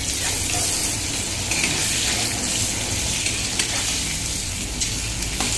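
Potato and pointed gourd pieces sizzling as they fry in hot oil in a kadai, with a steady hiss and a few sharp clicks of stirring against the pan.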